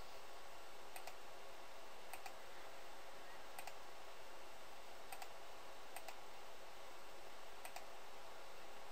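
Computer mouse clicking, about six faint, sharp clicks at irregular intervals over a steady low hiss.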